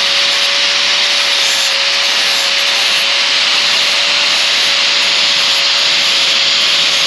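Angle grinder with a 40-grit sanding pad running at full speed, sanding the edge of a mower blade in a light pass. A steady motor whine sits under a harsh sanding hiss.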